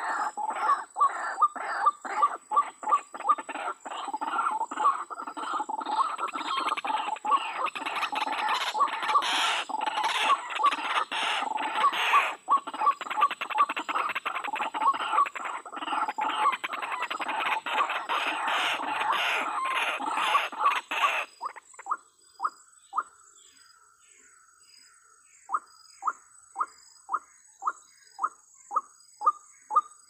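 White-breasted waterhen calls: a dense run of rapidly repeated calls that stops abruptly about two-thirds of the way through. After a short pause, a slower series of single short calls follows, about two or three a second.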